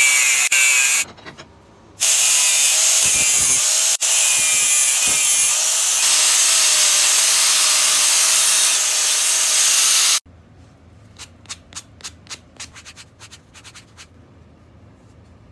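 Angle grinder running against steel bar, its motor whine wavering under the high hiss of the abrasive disc on metal; it drops out briefly about a second in, runs on, and stops abruptly about ten seconds in. A few seconds of faint, quick scrubbing strokes follow as a small wooden piece is rubbed by hand on an abrasive block.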